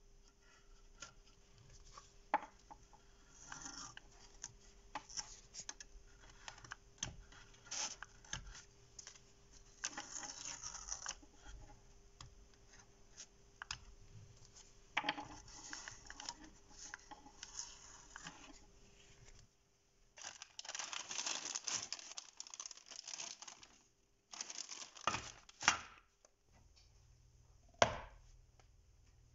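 Masking tape being handled on a steel saw part: scattered rustling, rubbing and tearing, with a longer run of tearing about two-thirds of the way through. A few sharp knocks follow near the end.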